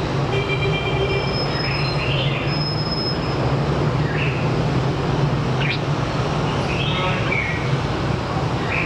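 Red-whiskered bulbul singing short, bright whistled phrases every second or two over a loud, steady low hum.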